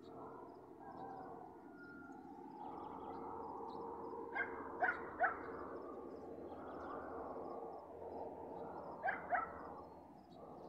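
A dog barking in short yaps, a quick run of three about four to five seconds in and two more near the end, over a continuous background of distant countryside sound with faint, high, repeated chirps.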